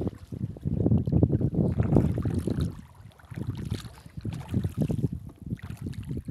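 Gusty wind rumbling on the microphone, rising and falling, with water sloshing around the wader in the shallows. It dips briefly about halfway through.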